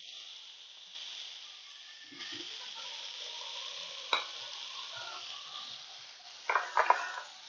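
Chicken strips sizzling steadily as they sauté in oil in a frying pan, with a single sharp click about four seconds in.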